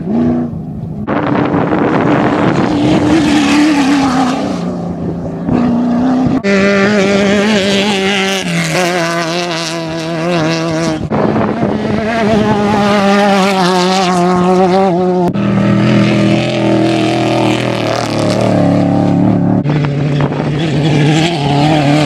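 Off-road race vehicle engines running hard, their pitch wavering up and down with the throttle. The sound changes abruptly every four to five seconds as one vehicle gives way to another.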